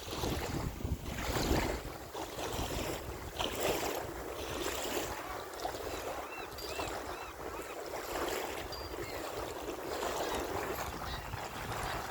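Ocean waves washing ashore with wind buffeting the microphone, the wind rumble heaviest in the first couple of seconds. A few short high chirps, like a small bird, come around the middle.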